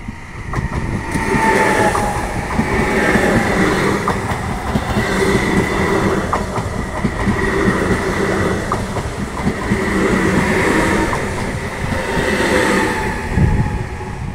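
A double-deck electric regional train passing close by, a loud steady rush of wheels on rail that builds over the first couple of seconds. Scattered sharp clicks come from the wheels on the track.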